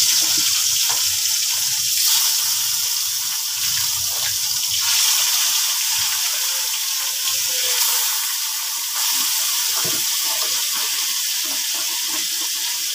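Tilapia pieces sizzling in hot oil in a karahi, starting suddenly as the first piece goes in. The sizzle flares up again a few times as more pieces are added.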